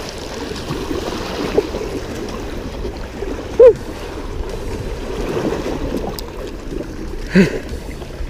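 Steady rush of flowing water, with a short pitched sound about three and a half seconds in and a brief voice sound near the end.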